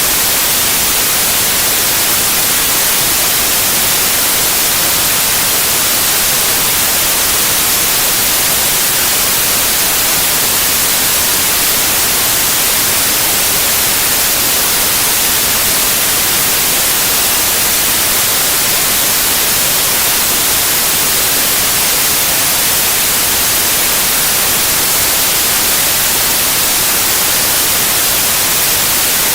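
Continuous white noise: a loud, steady, even hiss with no changes or events.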